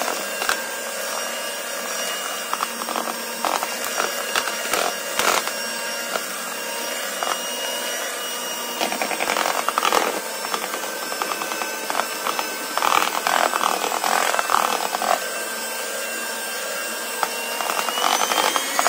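Electric hand mixer running at low speed, its beaters churning rice flour and warm sugar syrup into a thick batter, with scattered clicks and knocks. Its whine rises slightly near the end.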